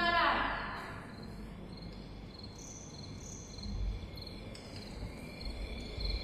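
Crickets chirping in a faint, high, steady pulsing trill, as a song fades out at the very start. A few soft low thumps come near the middle and the end.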